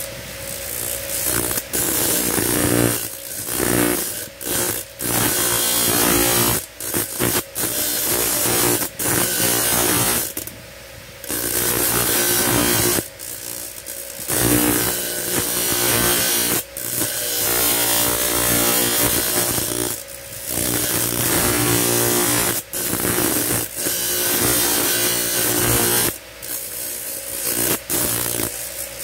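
Metal blank held in pliers being ground against a motor-driven spinning disc. A steady motor hum runs throughout, with grinding noise coming and going every few seconds as the piece is pressed to the disc and eased off.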